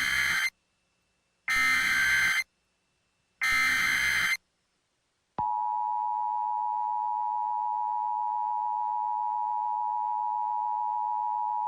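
Emergency Alert System transmission: three short bursts of screechy SAME header data, about a second apart, then about five seconds in the steady dual-tone EAS attention signal (853 and 960 Hz) starts and holds. This is the alert header and attention tone that come before a tornado watch announcement.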